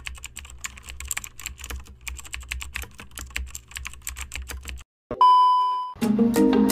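Typewriter key clacks, rapid and irregular, as a typing sound effect, then a single bell ding about five seconds in. Music starts near the end.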